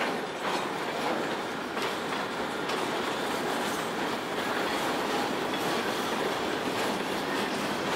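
Freight cars rolling past: steady noise of steel wheels on the rails, with a few faint wheel clicks about two and three seconds in.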